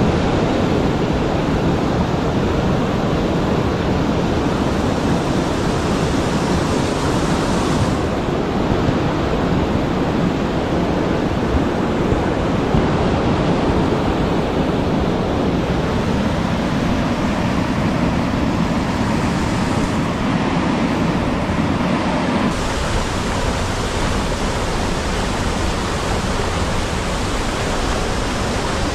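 Loud, steady rushing of a waterfall running higher than normal after two days of rain. Its tone changes abruptly a few times, about eight seconds in and again after twenty seconds.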